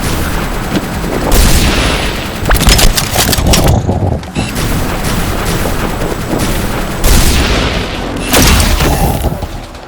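Bursts of rapid gunfire and booms, dense and loud, with a brief lull about four seconds in.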